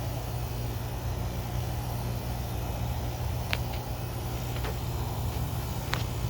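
A 2020 Tempstar 3-ton heat pump's outdoor unit running in defrost mode: a steady low hum with a hiss over it, and a few short sharp ticks about three and a half, four and a half and six seconds in.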